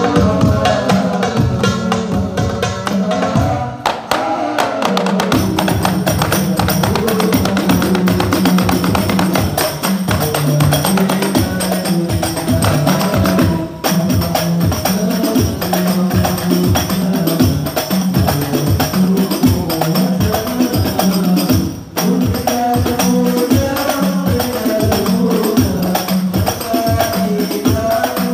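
Hadrah ensemble playing: rebana frame drums and a darbuka beat a fast, dense, steady rhythm, with a voice singing sholawat in places.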